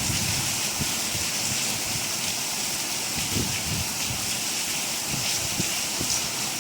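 Rain falling steadily: an even hiss, with a few soft low thuds from heavier drops.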